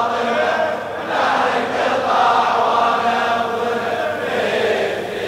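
Large crowd of men chanting the refrain of a latmiyya, a Shia mourning chant, together in long sung phrases.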